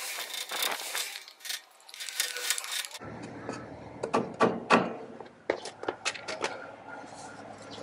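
Metallic clinks and rustling, then a string of about ten sharp knocks and clicks, the loudest nearly five seconds in. They come from hand work at the rear axle end with a wooden board held against it.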